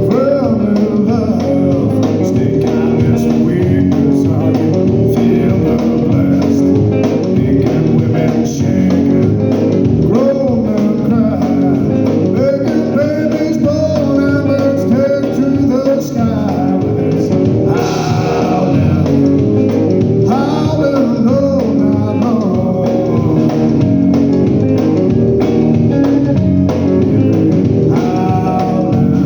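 Blues song played on guitar over bass, with singing.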